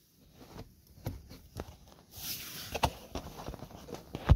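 Handling noises as gear and bedding are moved about: scattered knocks and taps, a burst of rustling plastic sheeting and fabric about two seconds in, and a loud thump near the end.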